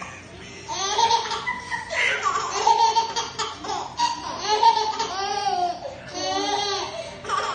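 Baby laughing in repeated high-pitched bursts, starting about a second in.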